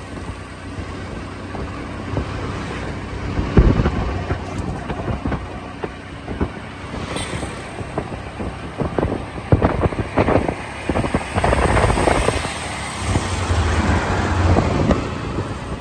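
Auto-rickshaw (keke) engine running with road noise, heard from inside the moving tricycle, with irregular knocks and rattles from the ride.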